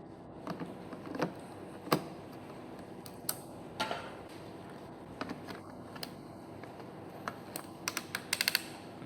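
Clicks and knocks from a coffee maker's removable grinding unit being taken out, cleaned and fitted back in place, ending in a quick run of rattling clicks.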